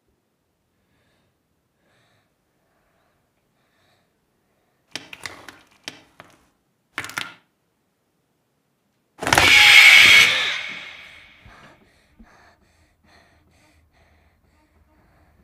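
Quiet, then two brief clusters of rattling clicks and knocks, then a sudden loud crash-like burst that dies away over two to three seconds.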